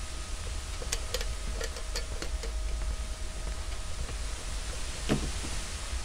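Steady low electrical hum under an even hiss, with a few small sharp clicks and ticks about a second in and a single duller knock near the end.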